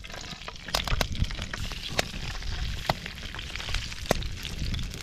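Sea-trout fillets frying in coconut oil in a steel pan over a burning Swedish candle: a steady sizzle broken by sharp pops and crackles, over a low rumble.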